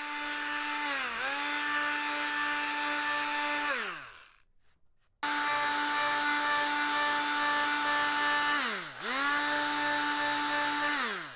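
Handheld oscillating multi-tool with a triangular sanding pad running steadily while sanding a hardwood wing spar flush with the ribs. Its hum winds down about four seconds in, it is off for about a second, then it comes back on, dips in pitch once near the end, and winds down again.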